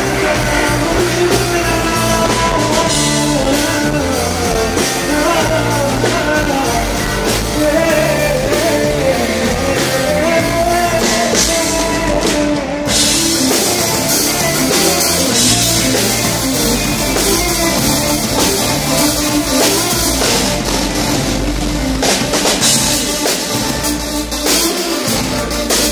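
Live pop-rock band music: a male vocalist singing over drum kit and electric guitar. About thirteen seconds in the music cuts abruptly to a different passage, with a busier band sound.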